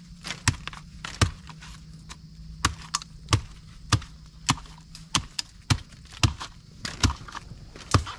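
A blade chopping at bamboo: about a dozen sharp strikes at an uneven pace, one to two a second, as a bamboo shoot is cut out of the clump.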